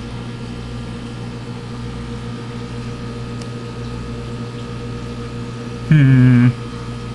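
Steady low electrical hum with a buzzing edge from the fish tank's running equipment. About six seconds in a voice gives a short, slightly falling 'hmm' lasting about half a second.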